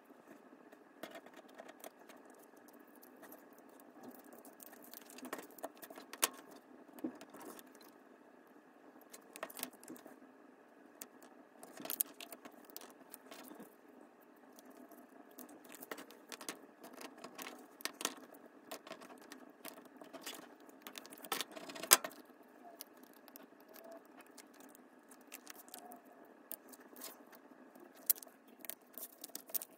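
Paper pieces being handled, slid and pressed by hand onto a cardstock card on a cutting mat: scattered rustles, light taps and small clicks, the sharpest tap about two-thirds of the way through, over a faint steady hum.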